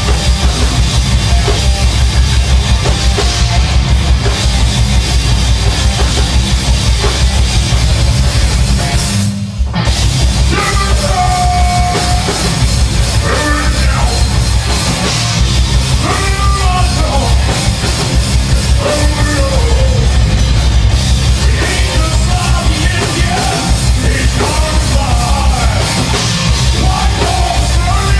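Heavy metal band playing live, loud, with electric guitars and drum kit. The band drops out briefly about nine seconds in, then comes back in with a man singing.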